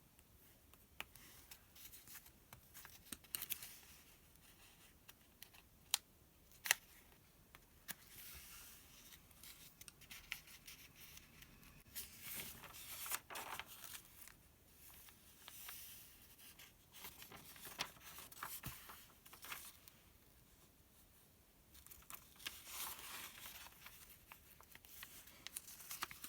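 Pages of a paper sales circular being handled and turned, with soft rustling swishes and fingertip taps and scratches on the paper; two sharp taps come about six seconds in.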